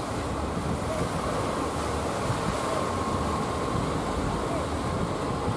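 Small waves breaking and washing over the shallow river mouth, a steady rushing noise, with wind buffeting the microphone.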